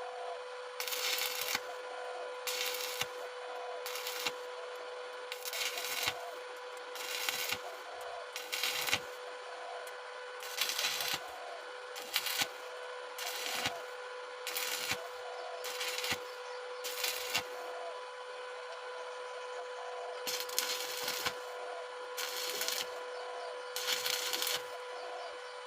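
Stick (arc) welding thin sheet metal with a 2.6 mm electrode, done in short stitches: the arc crackles in bursts of under a second, again and again with brief gaps between, over a steady hum.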